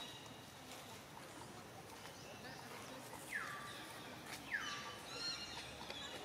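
Animal calls: two falling calls about half a second apart, then higher, shorter chirps, with a couple of sharp clicks in between, over faint outdoor background.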